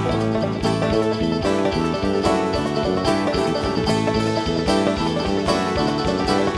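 Live bluegrass-rock band playing: picked banjo and guitars over a drum kit, with no singing.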